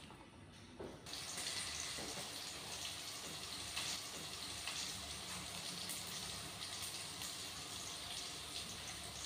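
Pot of fish and winter melon soup boiling, a steady rushing bubble of liquid that starts abruptly about a second in.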